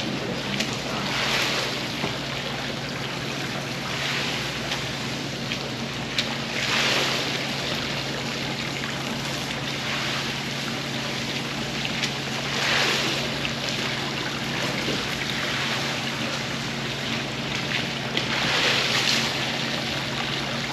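Rug being wet-washed: rushing, hissing water that swells every few seconds, as if in passes, over a steady machine hum.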